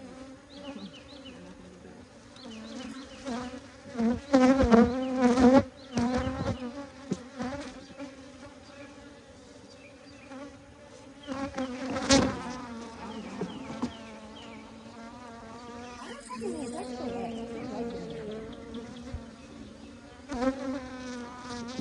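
Honeybees buzzing in a steady hum around an open hive, swelling louder as bees fly close to the microphone. A few sharp loud knocks come about four to six seconds in and again about twelve seconds in.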